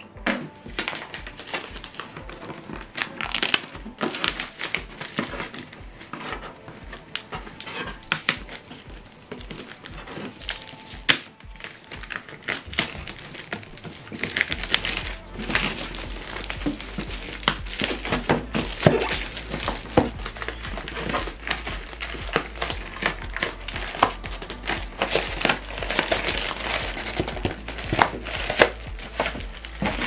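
Plastic wrapping and a cardboard box crinkling and rustling in a series of short, sharp crackles and clicks as a boxed speaker is unpacked by hand, over background music.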